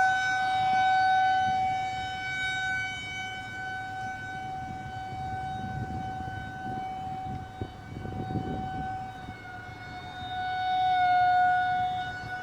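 Outdoor tornado warning siren sounding one steady, held tone. Its pitch wavers slightly near the end, over a low background rumble that swells twice in the middle.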